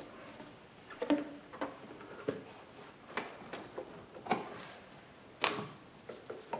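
Hands pushing a new rubber upper radiator hose onto its engine fitting: scattered short knocks, clicks and rubbing, about half a dozen in all, the loudest about five and a half seconds in.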